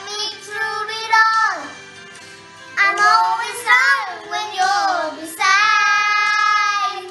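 Two young children, a brother and sister, singing a ballad together, several sung phrases ending in one long held note near the end.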